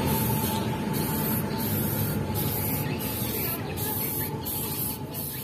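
Aerosol spray-paint can hissing in a string of short bursts with brief breaks between, as red paint is sprayed onto a bus's mud flap.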